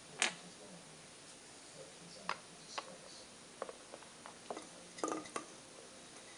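Scattered sharp clicks and taps as a small glass jar and its red plastic lid are handled, with a strong click just after the start and a quick cluster of clicks about five seconds in.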